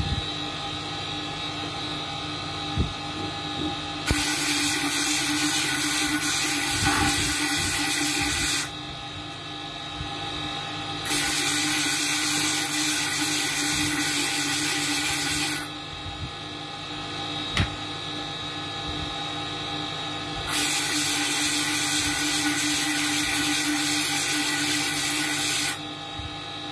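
Electric spindle of a water-cooled gemstone bead-grinding machine running with a steady hum. Three times, starting about 4, 11 and 20 seconds in, a sapphire bead held on a stick is pressed against the spinning tool for four to five seconds, giving a loud hissing grind that stops sharply when the bead is lifted off.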